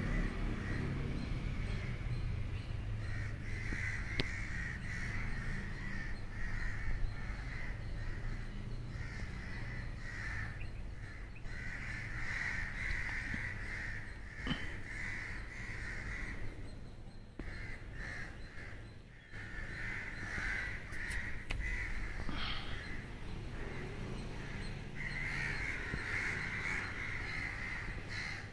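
Crows cawing over and over in harsh, overlapping stretches, above a low steady rumble.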